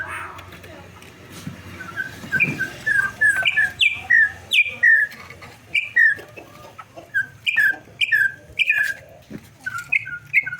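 Campo troupial (corrupião) singing: a run of loud, clear whistled notes, each sliding down in pitch, given in quick repeated phrases.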